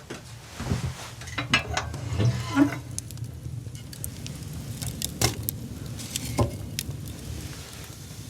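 Small hard objects being handled: a string of irregular clinks and knocks, loudest about two seconds in and again about five seconds in, over a steady low background noise.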